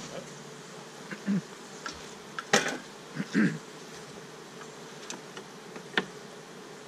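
Honeybees buzzing around an open hive, with single bees passing close in short buzzes that bend in pitch. Two sharp knocks cut through, the louder one about two and a half seconds in and another near the end.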